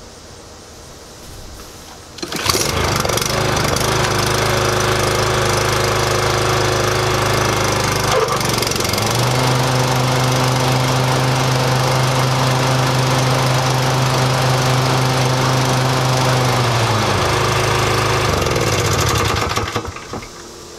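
Toro TimeMaster 30-inch walk-behind mower's engine pull-started, catching about two seconds in and running steadily. About eight seconds in there is a click and the engine note changes. Near the end the engine winds down and stops.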